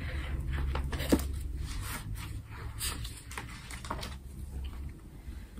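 A low steady hum with a few soft clicks and rustles of handling scattered through it, the sharpest about a second in.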